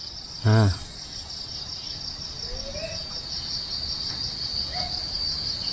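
Steady, rapidly pulsing chorus of night crickets, with wind rumbling on the microphone and building toward the end.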